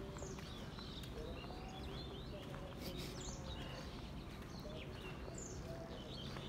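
Several small birds chirping and calling, short high chirps scattered throughout, over a steady low background rumble.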